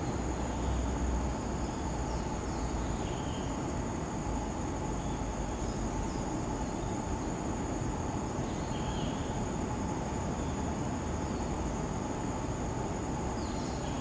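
Insects trilling steadily at a high pitch over a low background rumble, with a few faint, brief bird chirps scattered through.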